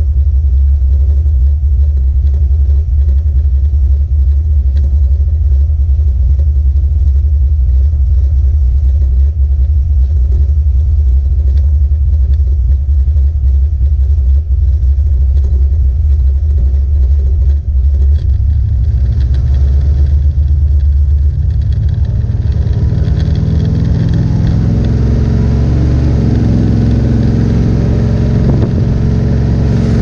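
Big-block 440 V8 of a 1970 Plymouth Duster heard from inside the cabin on a test drive. It rumbles steadily at low revs, then from about 18 seconds in it is opened up and its revs climb over the last ten seconds. The run tests a freshly re-phased distributor rotor and new plugs, meant to cure a misfire at high rpm.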